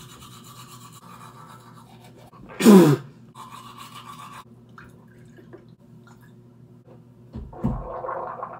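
Manual toothbrush scrubbing teeth, a steady scratchy brushing. About three seconds in, a brief loud voice sound that falls in pitch cuts across it. Near the end there is a low thump and a short throaty sound.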